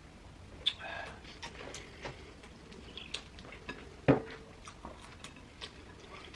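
Eating at a table: scattered soft clicks and handling sounds of food and packaging being picked at and chewed, with one louder knock about four seconds in, something set down on the table.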